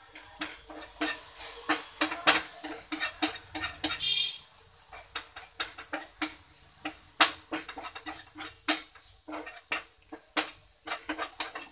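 Wooden spatula scraping and knocking against a nonstick frying pan in quick irregular strokes as grated cauliflower is stirred and fried. A brief high chirp about four seconds in.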